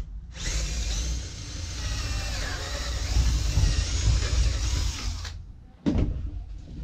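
Cordless drill boring a pocket hole through a wooden board with a depth-collared bit in a pocket-hole jig, running for about five seconds and then stopping. A short knock follows about a second later.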